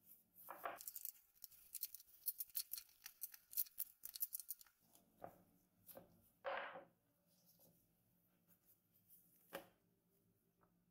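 Faint ticking and crackling of dough being rolled out with a rolling pin on a floured wooden board, with a few soft knocks. The ticking stops about five seconds in, and a brief rustle of the dough follows.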